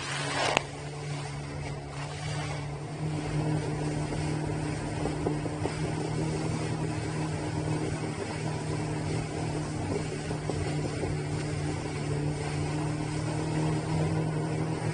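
A Kawasaki Ultra jet ski's engine runs steadily at speed, with the rush of water and wind over choppy water. A brief loud burst of spray hits right at the start.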